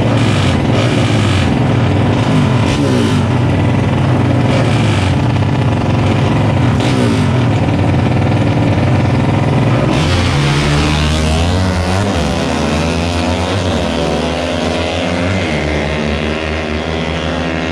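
Tuned Yamaha Exciter race motorcycles with big-bore 62 mm engines revving hard, the engine notes climbing again and again as they pull through the gears. About ten seconds in, the sound turns to revs rising and falling, a little fainter toward the end.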